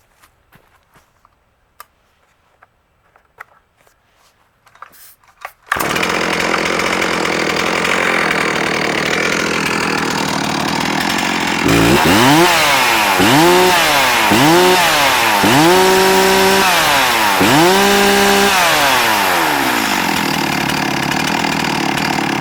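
Stihl MS360 Pro two-stroke chainsaw. After a few faint clicks, it starts suddenly about six seconds in and idles steadily. It is then revved up and back down five times and settles back to idle.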